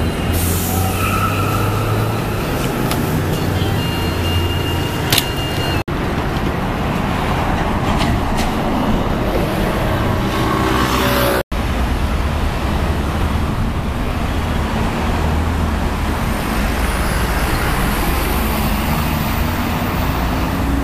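Steady road traffic noise from cars and motor vehicles passing on busy city streets. The sound is three stretches of traffic joined by abrupt cuts, about 6 and 11 seconds in.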